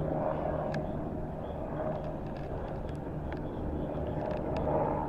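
Steady road noise inside a moving car's cabin: a low rumble with a faint hum and a few small ticks.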